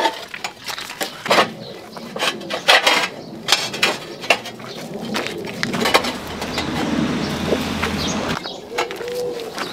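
Stacked terracotta clay roof tiles clinking and clattering against each other as they are lifted off a pile, many sharp knocks in the first several seconds. A steadier noise follows and cuts off suddenly near the end.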